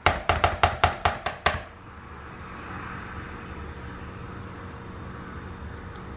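A spoon knocking against a glass mixing bowl while stirring macaroni and cheese: about nine quick knocks in the first second and a half, then only a low steady hum.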